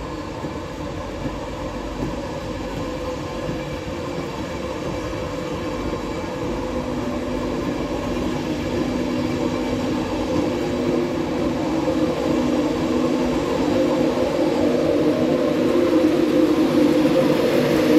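LNER InterCity 225 electric train, Mark 4 coaches hauled by a Class 91 locomotive, running past with a steady rumble of wheels on the rails. A steady hum of several tones grows louder through the second half as the locomotive comes by near the end.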